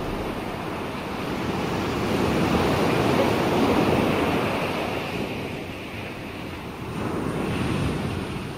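Sea waves washing, an even rush of water that swells twice and fades out near the end.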